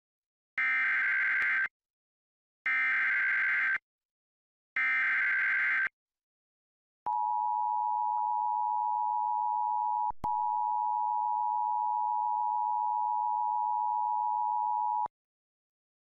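Emergency Alert System activation for a flash flood warning: three bursts of SAME header data tones, about a second each, buzzy and warbling, then the steady two-tone EAS attention signal held for about eight seconds, with a brief break about three seconds in.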